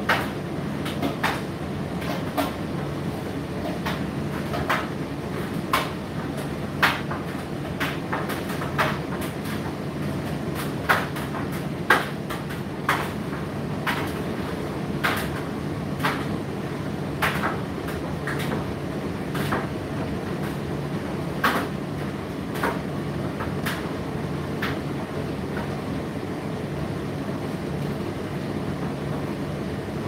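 Indesit IDC8T3 8 kg condenser tumble dryer running through its drying cycle: a steady motor and drum hum with irregular sharp knocks, roughly one a second, as the drum turns.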